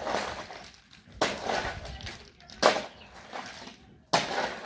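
Shovel strokes scraping through a gravel, sand and cement mix while concrete is mixed by hand, four sharp scrapes about one every second and a half.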